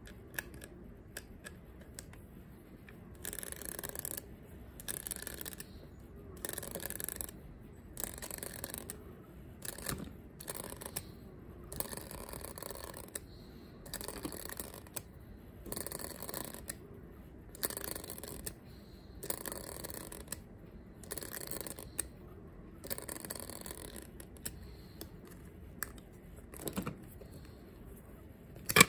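The spring of a Hornby clockwork OO/HO-scale Thomas locomotive being wound with its key. It makes a run of short ratcheting turns, each under a second long, about one every one and a half seconds, starting about three seconds in.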